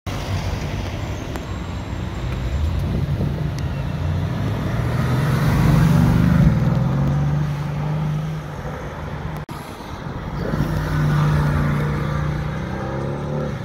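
Mercedes-AMG GT C Roadster's twin-turbo V8 running at low revs as the car passes at low speed, growing to its loudest about six seconds in. There is a sudden short break just before ten seconds, then the engine is heard pulling away again.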